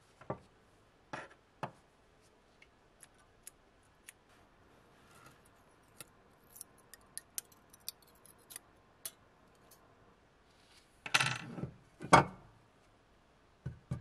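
Steel tweezers clicking and tapping against the corroded metal parts of a gun-shaped lighter being taken apart, a scatter of small sharp ticks. Two louder knocks come about eleven and twelve seconds in, as metal parts are handled against the bench.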